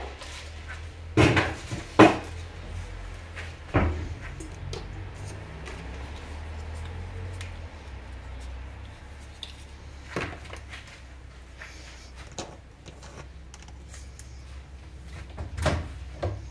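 Kitchen handling noise: scattered knocks and clatters, like cupboard doors and dishes being moved, with two loud knocks a second or two in and more about halfway and near the end, over a low steady hum.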